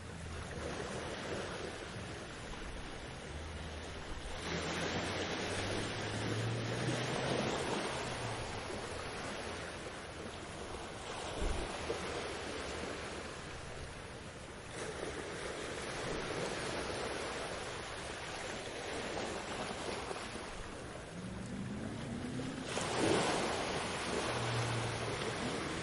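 Ocean waves washing onto a beach, a steady wash of surf that swells as the waves break, about four, fifteen and twenty-three seconds in.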